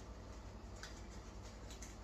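A few faint light ticks of packaging and paper inserts being handled over a steady low hum.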